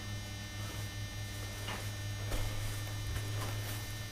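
Steady low electrical hum, with a few faint knocks.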